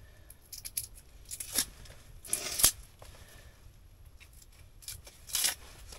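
Dry birch bark being torn and stripped by hand for kindling: short rasping tears with small crackles between, three louder ones, the loudest about two and a half seconds in.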